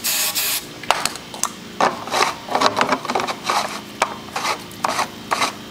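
A brief hiss of aerosol hairspray sprayed into a PVC potato cannon's combustion chamber to charge it with fuel. Then the threaded PVC end cap is screwed on by hand, giving a run of irregular plastic scrapes and clicks.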